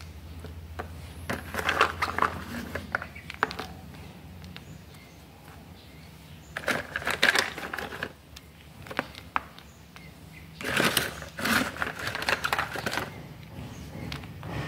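Hands shifting black sapote seeds about in a pot of damp coco peat: the seeds click against each other and the pot, with a soft rustle, in three short spells of a second or two each.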